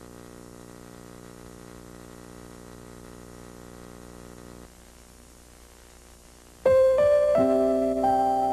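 A faint steady hum, which drops away about four and a half seconds in; two seconds later a jingle on electric piano starts, playing a melody of clear held notes.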